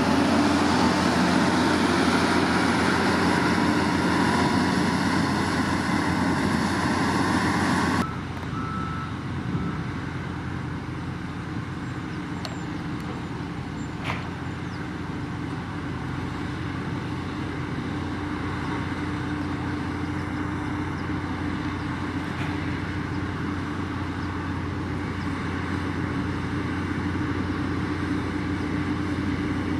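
Motor grader's diesel engine running under load while its blade pushes gravel, heard close up with a loud gravelly hiss over the engine. About 8 s in the sound drops suddenly to a quieter, steady engine drone from farther off.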